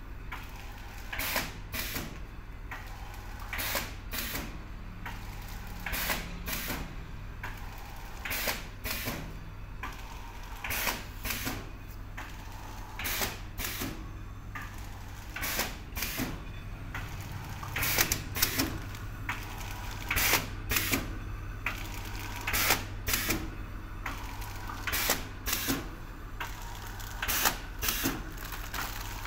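Automatic vertical form-fill-seal pouch packing machine running through its cycle: sharp mechanical clacks, often in pairs, roughly every second to second and a half, over a steady low hum.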